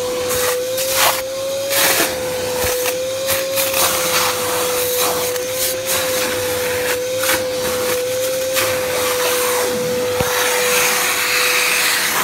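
Craftsman shop vac running with a steady, slightly wavering motor whine over a rush of air, sucking up a spill from the floor, with irregular crackles and knocks as it works.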